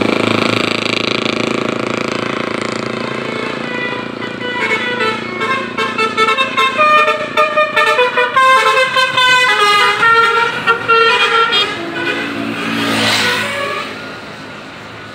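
Bus 'telolet basuri' multi-tone musical horn playing a quick tune, its notes stepping up and down several times a second. A steady drone runs for the first few seconds, and a short rising-and-falling sweep comes near the end.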